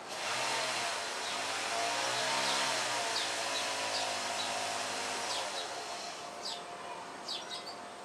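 A machine's motor runs with a whooshing noise and a low hum, its pitch rising and falling back, and fades out after about six seconds. Small birds give short chirps throughout, clearest near the end.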